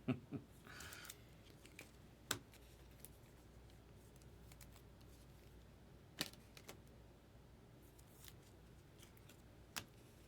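Faint handling of trading cards and their packaging: a few sharp clicks and light taps spaced several seconds apart, with a brief rustle about a second in.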